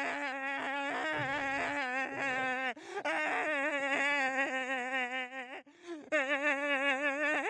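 A cartoon man's voice wailing in long, wavering held cries at one steady pitch. There are three cries, with short breaks for breath about 3 seconds and 6 seconds in.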